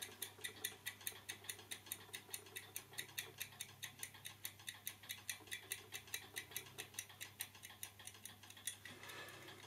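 Restored clock movement's escapement ticking evenly, about four ticks a second, driven by hand pressure on the wheel in place of the mainspring; the ticking dies away near the end.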